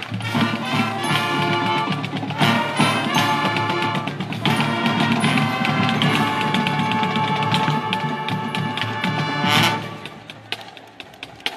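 Marching band playing at full volume, brass over drums. The band cuts off sharply about ten seconds in, leaving only a few light percussion taps.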